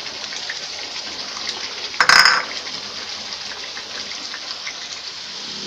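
Thick botok spice paste cooking in a wok, a steady fizzing sizzle of hot oil in the paste, with a short louder burst about two seconds in.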